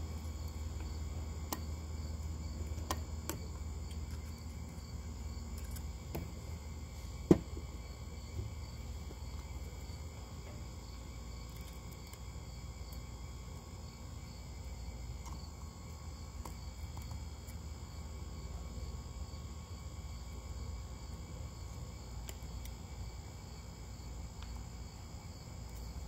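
Crickets chirping steadily, with a few small clicks and one sharp knock about seven seconds in from hands handling a model hit-and-miss engine while it is oiled and its flywheels turned by hand; the engine itself is not running.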